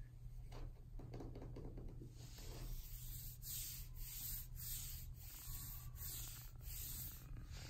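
Faint rhythmic scratchy rubbing, about two short strokes a second, starting about two seconds in, over a low steady hum.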